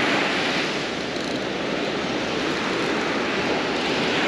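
Surf breaking on a sandy beach, a steady rush of waves.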